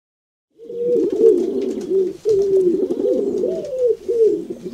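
Pigeons cooing: a steady run of rising-and-falling coos that starts about half a second in, after a brief silence.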